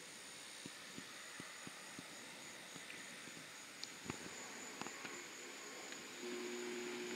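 Faint outdoor ambience of insects, crickets, drawing a steady high-pitched drone over a soft hiss, with scattered faint ticks. A low steady hum comes in about six seconds in.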